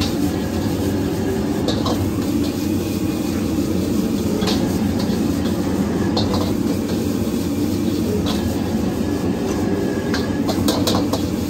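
A steady low rumbling roar at a street-food cooking stall, with light metal clinks of cooking utensils every second or two, a quick cluster of them near the end.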